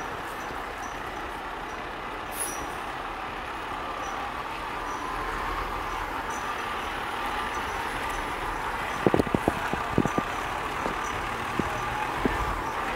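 A fire department aerial ladder truck's diesel engine running steadily as the truck manoeuvres at low speed, with a short hiss about two seconds in and a cluster of sharp knocks around nine to ten seconds in.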